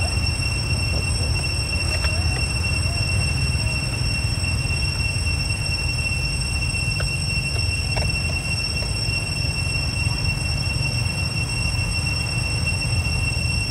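Steady outdoor ambience: a low rumble like wind on the microphone, under a constant high-pitched insect drone held on two pitches, with a couple of faint ticks.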